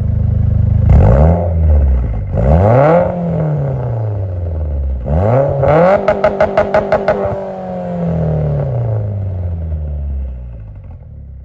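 Car engine revved hard three times with no load, each rev rising quickly and falling slowly. At the top of the third rev it stutters in a quick run of about eight pulses, then winds down slowly toward idle.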